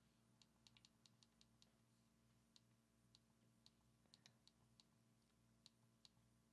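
Faint, irregular clicks of buttons being pressed on a Tascam DR-40X handheld recorder during its first setup, some in quick runs, over a faint steady hum.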